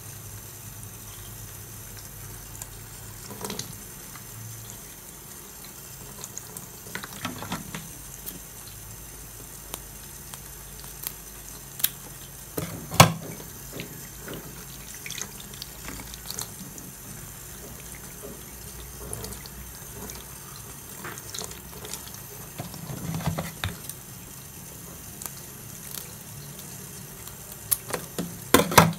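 Tap water running into a sink, with scattered sharp clicks and snips of kitchen scissors trimming raw shrimp in a plastic tub. The loudest click comes about midway and a quick cluster near the end.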